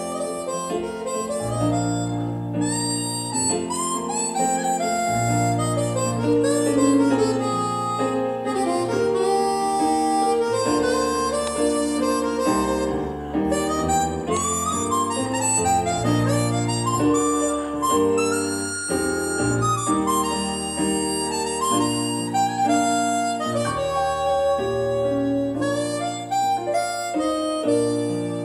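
Harmonica played into a microphone, carrying a melody over an instrumental accompaniment with sustained bass notes, heard through a television.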